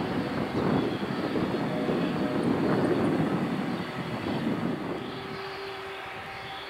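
Boeing 747-400F's four jet engines running loud as the freighter rolls out after landing, a broad rumble that slowly fades. About five seconds in it gives way to a quieter, steady engine sound with a steady whine as the aircraft taxis.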